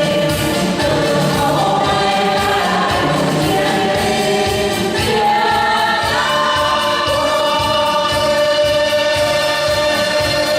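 A choir singing a Vietnamese march song, holding long notes over instrumental backing with a steady beat.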